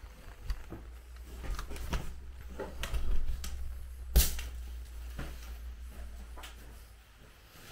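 Footsteps on the stone floor of a small porch: irregular taps and knocks, with one sharper knock about four seconds in, over a steady low rumble.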